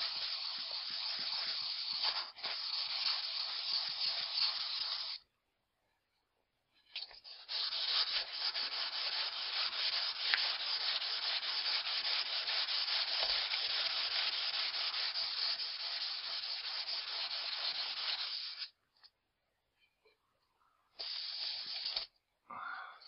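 Axe blade drawn over 1000-grit wet-and-dry sandpaper on a foam mat: a steady sanding rub in two long runs, broken by a pause of about two seconds around five seconds in, then a short burst near the end. This is the final, finest grit in re-sharpening the axe's convex edge.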